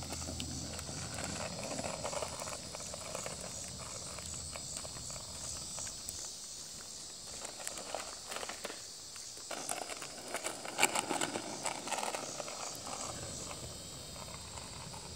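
Small plastic skateboard rolling on a cracked asphalt street, its wheels grinding with irregular clicks and knocks, busiest about ten to twelve seconds in, over a steady high hiss.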